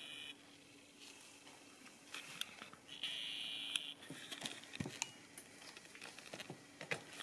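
Faint whine of a camera's zoom motor, brief at the start and again for just under a second about three seconds in, over a low steady hum with scattered light clicks.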